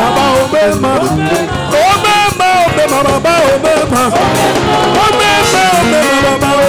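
Music with a singing voice over a steady percussion beat.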